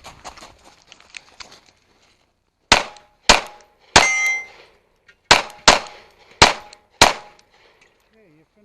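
A compact backup pistol fires seven shots in quick pairs and singles. The third shot rings a steel target for about half a second.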